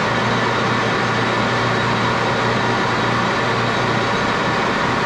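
Geared-head metal lathe running steadily at about 890 RPM, its spindle and gearing giving a constant hum with a few steady higher tones, while a small steel socket head cap screw is turned in the collet chuck.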